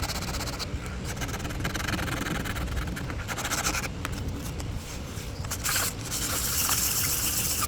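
Hand sanding of cured Solarez UV resin filler on a carbon kiteboard: sandpaper rasping over the patch in stretches of a second or so, with a longer, louder stretch near the end.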